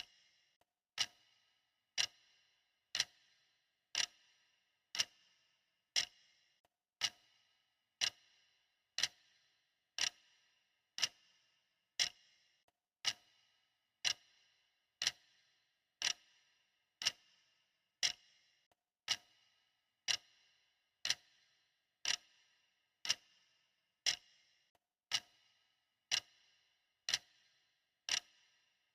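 Clock ticking steadily once a second, each tick a sharp, bright click with a short ring.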